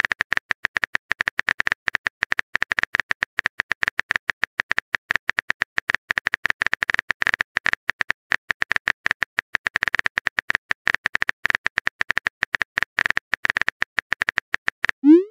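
Simulated keyboard typing sound effect from a texting-story app: rapid, irregular key clicks, several a second, ending in a short rising sweep.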